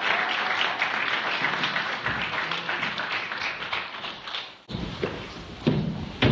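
Audience applauding: dense clapping that fades out about four and a half seconds in, followed by a low rumble and a couple of dull knocks.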